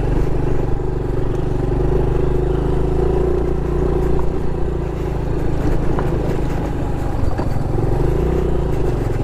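Honda Pop 110i's small single-cylinder four-stroke engine running steadily as the motorcycle rides along.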